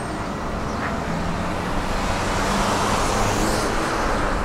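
Road traffic: a motor vehicle passes on the adjacent street, its engine hum and tyre noise building to loudest about three seconds in, then easing.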